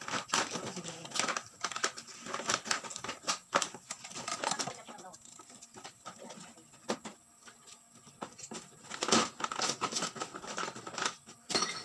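Empty plastic bottles and plastic sacks crinkling and clattering as they are handled and packed into a sack, in a busy run of irregular crackles and light knocks that thins out around the middle.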